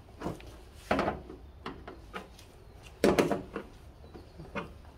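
Hand screwdriver turning the mounting screws of a plastic hood deflector snug: scattered clicks and scrapes of the bit and the plastic, the loudest cluster about three seconds in.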